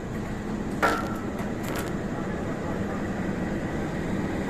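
Arriving diesel-hauled passenger train rolling past on a far track: a steady low rumble and hum, with one sharp metallic clank about a second in and a few lighter clicks just after.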